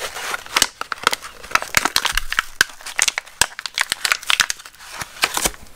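Plastic blister pack with a cardboard backing being torn open and crinkled by hand: a run of irregular crackles and snaps.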